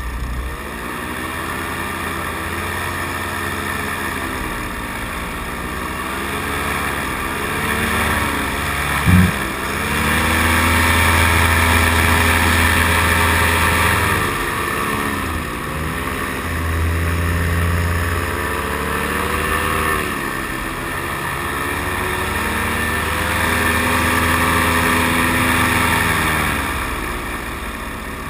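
Paramotor engine and propeller running, the pitch rising and falling several times as the throttle is worked. A single brief loud knock about nine seconds in.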